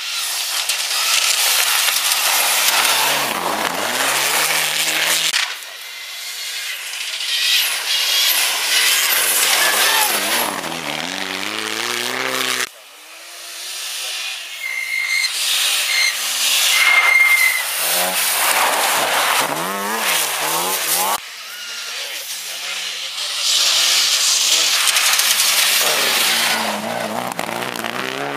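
Rally cars passing through a snowy corner one after another, four passes in all, each engine's pitch dropping as the car slows into the bend and then climbing hard as it accelerates away, over a loud rushing hiss.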